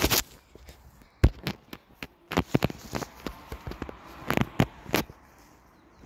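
Irregular clicks and knocks of a handheld camera being moved about, with a faint hiss between them.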